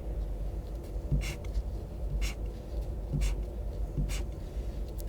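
Pink highlighter felt tip dragged across paper in about four short strokes, roughly a second apart, over a steady low hum.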